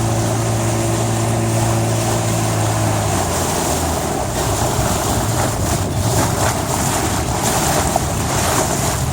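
An engine running with a steady hum that drops away about three seconds in, leaving loud wind rushing on the microphone.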